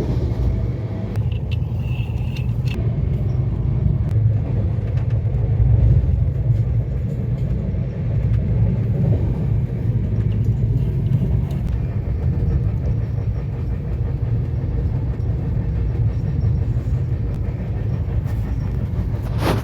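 Moving passenger train heard from inside an air-conditioned coach: a steady low rumble that runs on without a break.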